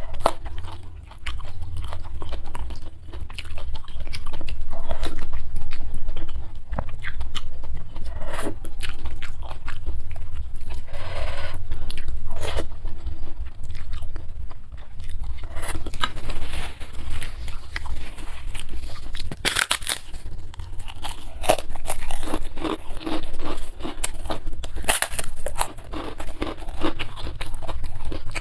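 Close-miked eating: mouth chewing with repeated crunchy bites of crisp food such as kerupuk crackers or cucumber, several crunches louder than the rest.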